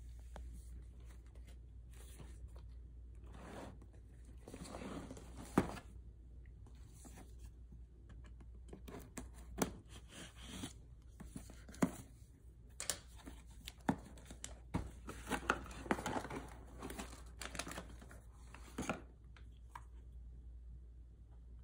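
Cardboard snack box being opened by hand: tearing, scraping and rustling of cardboard and paper. There is a sharp click about five seconds in, then a busy run of tears, taps and crinkles from about nine seconds in, dying away near the end.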